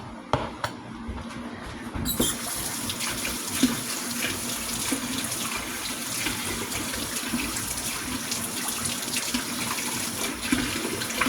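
A kitchen tap is turned on about two seconds in and water runs steadily into the sink, after a few light knocks.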